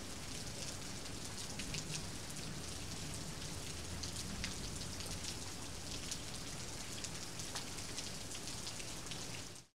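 Rain falling steadily, with scattered drop taps through the steady hiss; it cuts off suddenly near the end.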